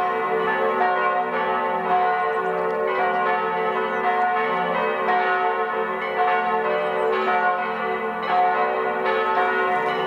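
Monastery church bells pealing, several bells striking over one another in a dense, ringing wash. The peal cuts off suddenly near the end.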